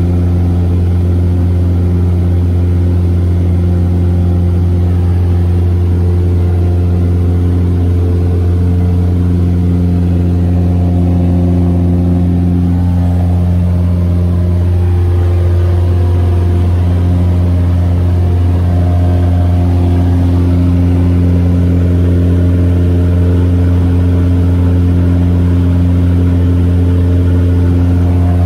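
Light aircraft's engine and propeller droning steadily in flight, heard inside the cockpit. The note wavers briefly about halfway through, then settles again.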